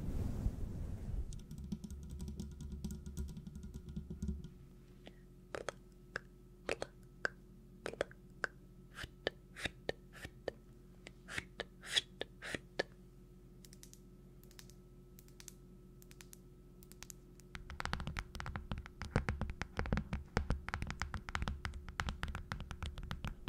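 Close-miked crisp taps and clicks, scattered and irregular at first, then a quick dense patter in the last few seconds, over a faint steady hum.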